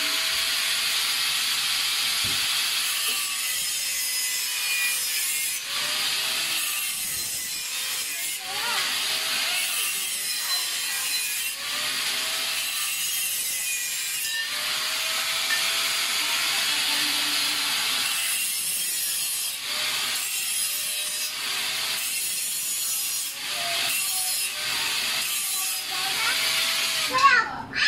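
Wood being sawn, in spells of a few seconds with brief pauses between them, and a sharper, louder noise near the end.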